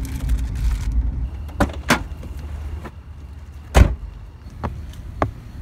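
Car running with low road rumble that dies away about a second in, then a few latch clicks and a car door slamming shut nearly four seconds in, followed by lighter knocks.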